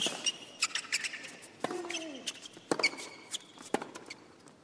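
Tennis rally on a hard court: the ball is struck by rackets several times, about a second or so apart. Short high squeaks come from tennis shoes on the court, and one player grunts with a falling pitch on one of his strokes.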